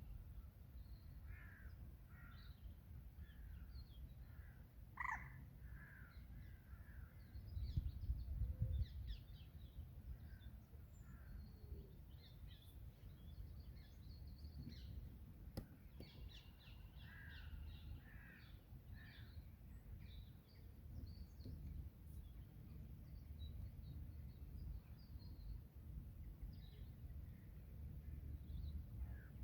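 Birds calling at a pond: runs of repeated calls, with scattered higher chirps from small birds. Under them is a steady low rumble that swells about eight seconds in.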